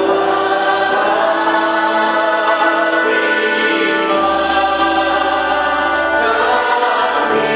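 A group of voices singing a Christian worship song together over sustained instrumental accompaniment.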